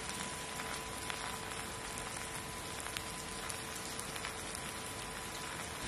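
Stir-fry of eggs with scallion and green pepper sizzling in a wok: a steady crackling hiss with scattered small ticks, over a faint steady whine.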